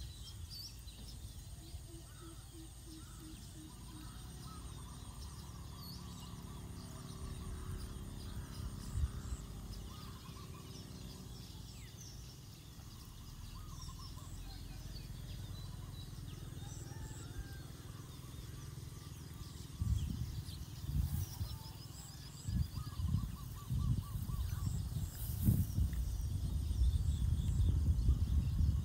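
Outdoor ambience of scattered bird chirps and calls over a low steady rumble, with a thin high steady tone in the first third. Irregular low buffeting thumps start about two-thirds of the way in and grow louder toward the end.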